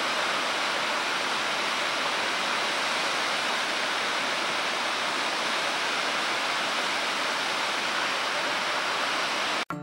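Waterfall on the McCloud River: a steady, even rush of falling water that cuts off suddenly just before the end.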